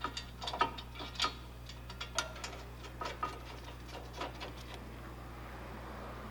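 Irregular light metallic clicks and clinks of hand tools and the brake caliper bracket being fitted to the front hub, stopping about four and a half seconds in.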